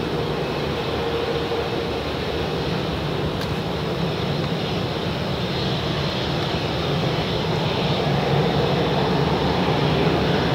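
Boeing 787-8 airliner's Rolls-Royce Trent 1000 jet engines running at taxi power as it turns onto the runway: a steady jet engine noise with a low hum, growing slightly louder near the end.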